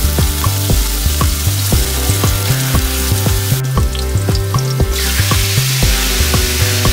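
Background music with a steady beat over chopped garlic sizzling in hot oil in a frying pan; the sizzle drops out for about a second in the middle.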